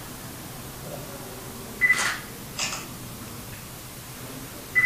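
Digital camera's short focus-confirm beep followed at once by its shutter click, about two seconds in, and a second beep right at the end.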